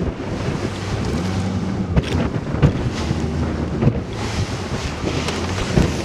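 Bass boat's outboard motor running at speed through rough water, with heavy wind on the microphone and spray hissing. The hull slaps the waves several times, sharpest about two seconds in and just before the end, as the boat comes off a wave and lands sideways in the trough.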